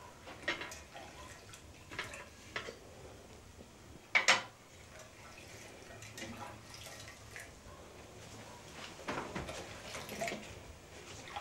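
Metal cooking pot and its lid being handled on a stove: scattered clinks and knocks, the loudest clank about four seconds in and a few more near the end.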